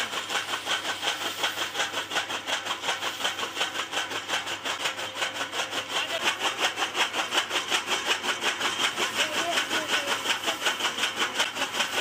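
Electric-motor-driven flywheel chaff cutter chopping green fodder stalks, its blades striking in a fast, even rhythm over the running motor.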